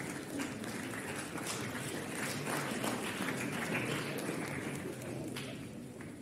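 Audience clapping steadily, a little louder in the middle and dying away near the end.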